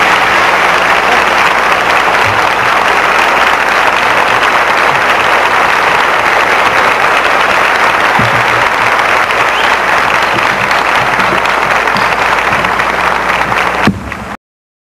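Large audience applauding steadily. The applause drops and cuts off abruptly near the end.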